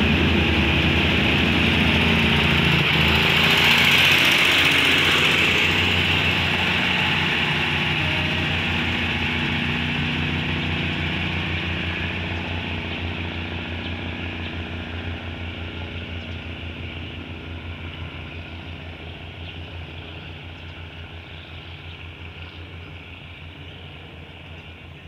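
Diesel multiple-unit train pulling away from the platform: its underfloor engines drone and the wheels run on the rails as it passes, loudest about four seconds in. The sound then fades steadily as the train recedes into the distance.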